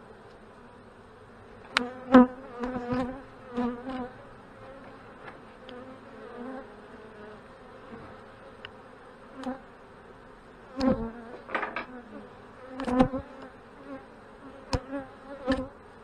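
Honey bees buzzing over an open hive: a steady hum, with individual bees passing close and louder now and then. Sharp cracks and knocks come from the metal hive tool and wooden frames as frames are pried loose, a few near the start and a cluster in the last five seconds.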